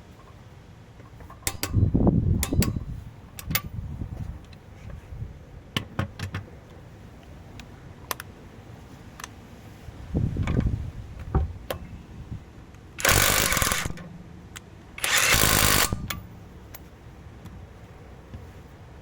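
12 V cordless impact wrench hammering in two short bursts, about a second and a half apart, near the end, working a bolt tightened for the torque test. Earlier come duller thuds and scattered clicks and clanks.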